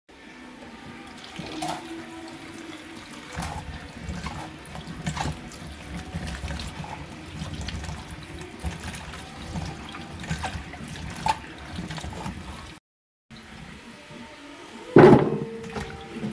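Water running and splashing, with scattered clicks and knocks over it. It cuts off abruptly for about half a second near the end, then resumes, followed by a louder knock.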